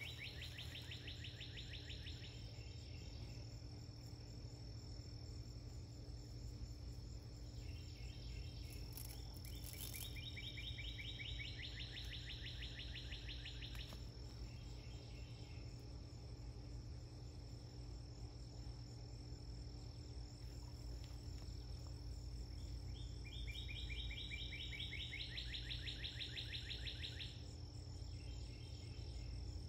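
Summer garden ambience: a steady high insect hum and a rapid pulsed trill lasting a few seconds. The trill comes at the start and again about twelve seconds later, then once more near the end. A low rumble runs underneath.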